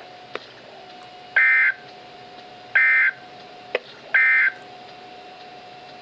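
NOAA weather radio receiver playing the SAME end-of-message data tones through its speaker: three short, harsh digital bursts about 1.4 seconds apart, which mark the end of the alert broadcast. A faint steady hum and two sharp clicks sit between the bursts.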